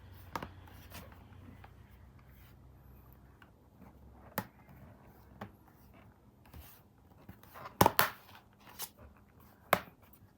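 Scattered sharp plastic clicks and light handling as an Asus laptop's bottom case is pressed shut and its clips seat, with a louder cluster of clicks about eight seconds in.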